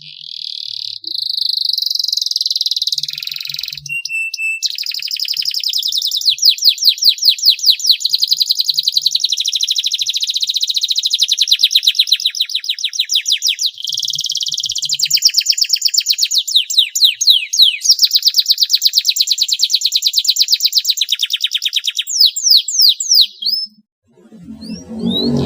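Domestic canary singing a long song of rapid rolling trills, strings of fast repeated high notes with only brief breaks, ending in a few quick downward-sweeping notes.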